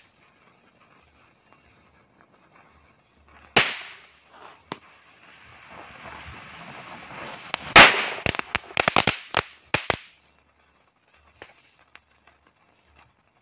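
A chain of firecrackers (mercon) going off along a burning fuse line: one sharp bang about three and a half seconds in, a few small pops, a hiss building for a couple of seconds, then a quick string of sharp bangs between about eight and ten seconds in, dying away to a few faint crackles.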